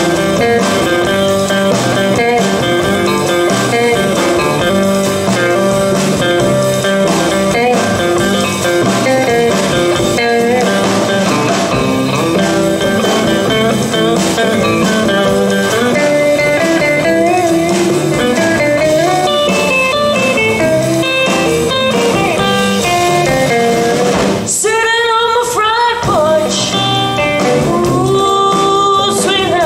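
Live rockabilly band playing an instrumental passage on upright bass, drum kit, acoustic rhythm guitar and electric guitar, with a short break in the playing about five seconds before the end.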